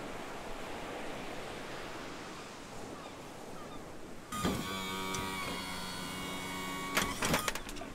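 Ocean surf washing as a steady hiss. About four seconds in, a held chord of several steady pitches sets in suddenly and lasts about three seconds, ending with a few sharp clicks.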